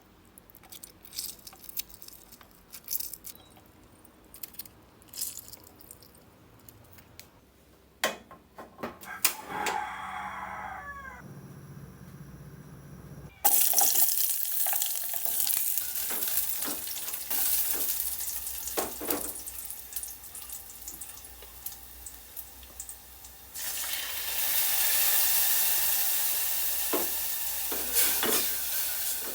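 Faint clicks of kitchen utensils, and a rooster crowing briefly in the background. Then, a little before halfway, a sudden loud sizzle of food going into hot oil, which keeps frying with stirring clicks and grows louder again near the end.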